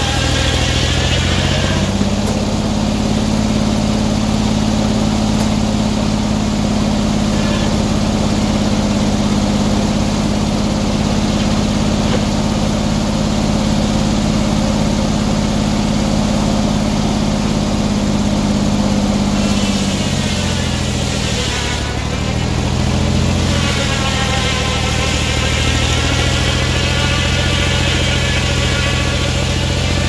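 Engine-driven circular sawmill running steadily while its large blade cuts a log and the carriage moves. The engine pitch dips and wavers about two-thirds through, then recovers. The engine's governor linkage has a worn-out nut, which the sawyer blames for the governor not working right.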